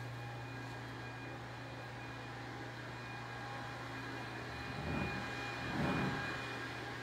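A steady low mechanical hum, with two short, louder scuffling bursts about five and six seconds in from puppies tussling over a stuffed toy.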